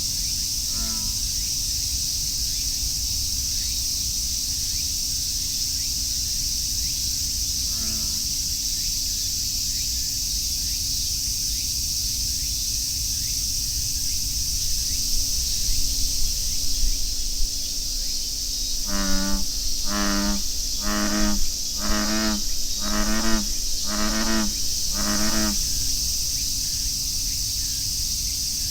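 American bullfrog calling: a faint single low croak about a second in and another at about eight seconds, then a run of seven snore-like croaks, roughly one a second, near the end. Cicadas drone steadily behind.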